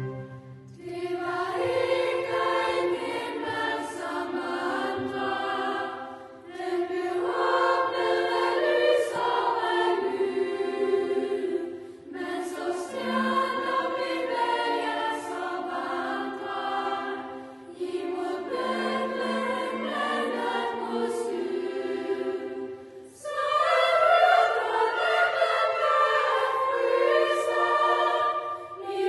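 Choir singing a Christmas song in Danish, in phrases of about five to six seconds with short breaks between them.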